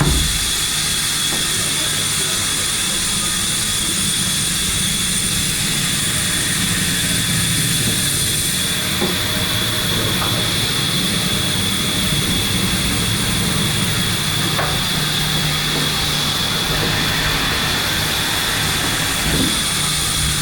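Steady workshop machinery noise: a low hum under a constant high-pitched whine, with a few faint knocks.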